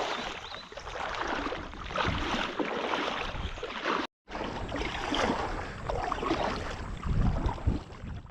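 Water splashing and swirling as a kayak is paddled along, with uneven swells from the strokes. It is in two cut-together pieces, with a brief dead silence about four seconds in.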